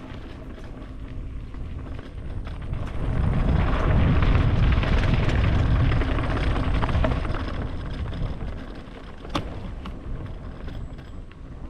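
Low rumble of a moving vehicle with wind noise on the microphone, louder for several seconds in the middle, and one sharp click near the end.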